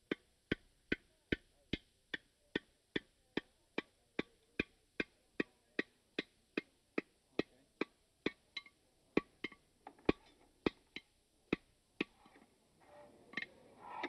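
Blacksmith's hand hammer striking a red-hot iron bar on an anvil, steady blows about two and a half a second, each with a short metallic ring. After about eight seconds the blows turn uneven, and they stop briefly about twelve seconds in before starting again.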